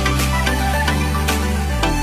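Background music: an electronic track with a heavy sustained bass line and steady drum hits.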